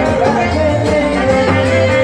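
Live band music played through loudspeakers, with saxophones over a bass line and drums.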